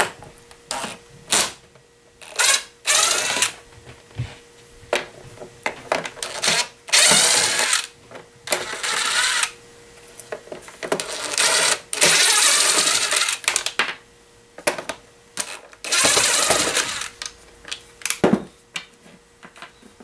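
Cordless impact driver backing Phillips head screws out of the plastic top of a vacuum cleaner's base, running in several bursts of one to two seconds with short clicks of handling in between.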